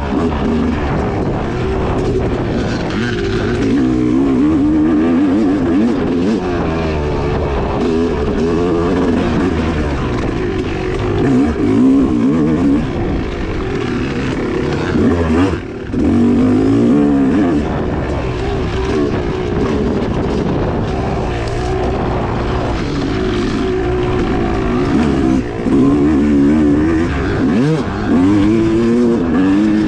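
2016 Yamaha YZ250X two-stroke dirt-bike engine under hard riding, its revs rising and falling constantly as the throttle opens and closes, with a brief drop about halfway through.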